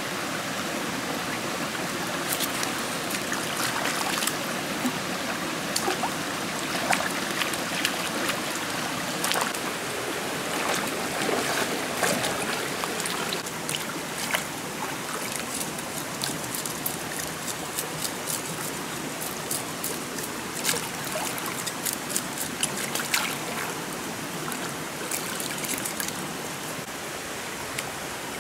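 Shallow forest stream flowing steadily, with many small splashes and sharp water clicks as hands work in the water.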